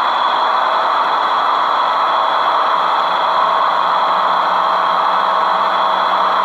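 Model locomotive sound decoder (ESU LokSound 5 with a LeoSoundLab file) playing a recorded 12-cylinder diesel engine idling steadily through the model's small speakers.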